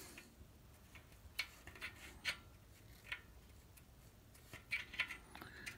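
Faint, scattered metallic clicks and taps as a steel keyway is slid into place on the pressure washer's shaft, a few with a short ring.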